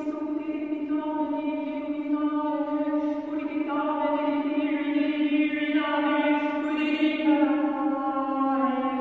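A woman's wordless chanting: one long held note at a steady pitch, its vowel colour shifting slowly with no break in the sound.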